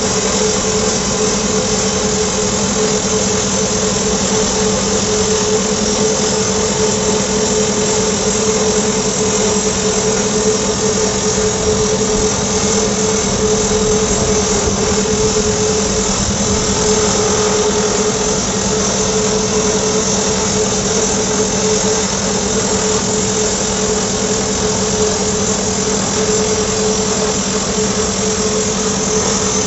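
Excavator-mounted hydraulic rock drill (ProDrill PD-90) drilling continuously: a steady, rapid hammering over a constant high whine, with no pauses.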